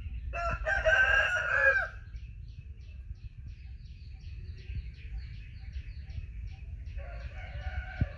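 A rooster crows once near the start, a loud call about a second and a half long that falls away at its end. After it comes a quick run of faint, high chirps.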